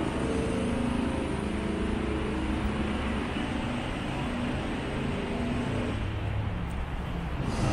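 City street traffic noise: a steady rumble of passing cars and engines.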